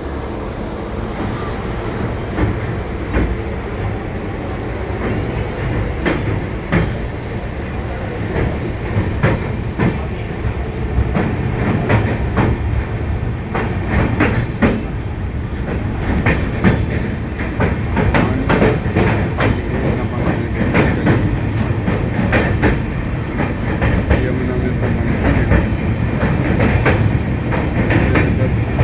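Train running over a steel railway bridge: a steady low rumble with rapid clicks and clacks of the wheels over the rails, which grow busier and slightly louder about halfway through.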